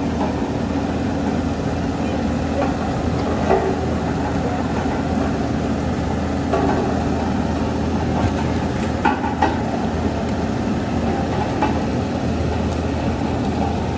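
Vibratory road roller's diesel engine running steadily under load as it tows a pickup by a steel cable, a steady low drone with a few faint short knocks.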